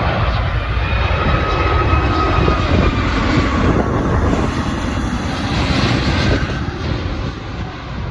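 An airliner's engines passing, a loud low rumble with a faint steady whine above it, easing off near the end.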